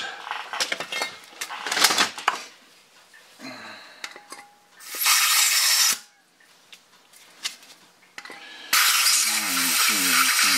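Hard plastic and metal clicks and clinks as an airsoft gas-blowback Hi-Capa magazine is handled. About five seconds in comes a one-second hiss of gas, then from about nine seconds a long, loud, steady hiss as gas is charged into the magazine.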